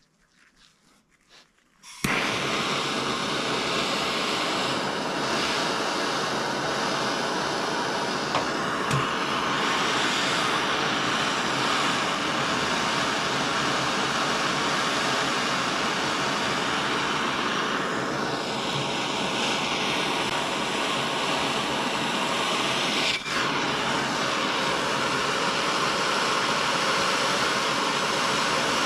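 Hand soldering torch on a MAPP-gas cylinder lit about two seconds in, then burning with a loud, steady hiss as its flame heats copper pipe joints for sweating. The hiss dips briefly once near the three-quarter mark.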